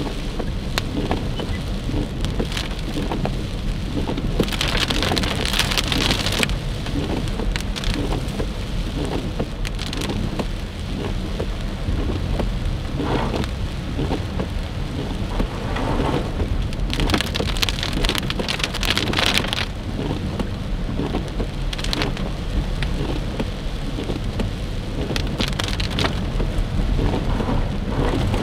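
Heavy rain drumming on a moving car's windshield and roof, heard inside the car, over a steady low road rumble. The hiss swells louder twice, about five and eighteen seconds in.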